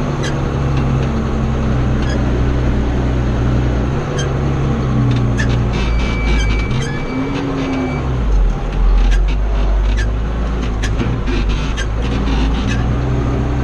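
Farm machinery engine running steadily, its pitch briefly rising and falling about halfway through. A short high steady beep and scattered ticking clicks sound over it.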